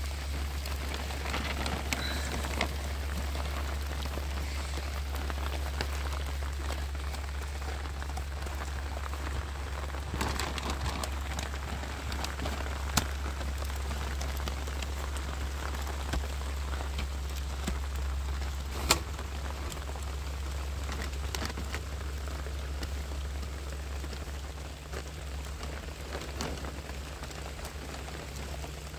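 Steady rain falling, with many scattered sharper drop hits and one louder tap about nineteen seconds in, over a steady low rumble.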